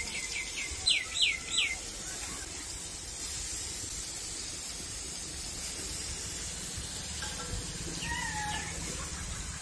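A bird calls a quick run of about seven falling whistled notes, the last three loudest, about a second in, and a softer wavering call comes near the end, over a steady background hiss.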